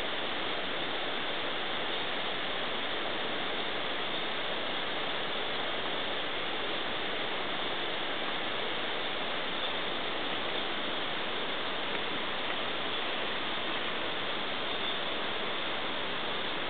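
Steady, even rushing of river water, with no bird calls standing out.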